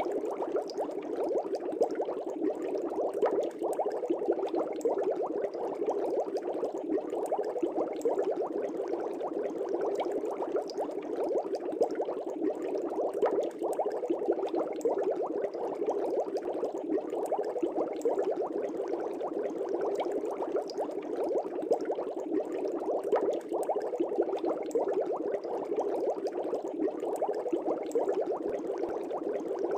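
Air bubbles streaming up through a fish tank's water: a steady, dense bubbling made of many tiny pops.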